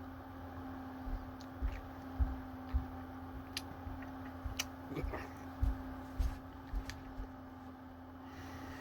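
Scattered faint clicks and soft low knocks of a spoon and ice cream container being handled while the ice cream is tasted, over a steady low electrical hum.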